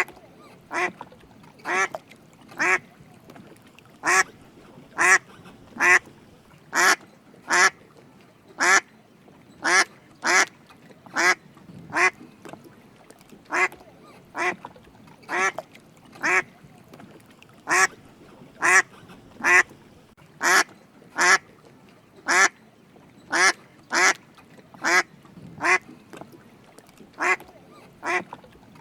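Drake mallard quacking repeatedly: short single quacks about one a second, sometimes two close together, with a few brief pauses.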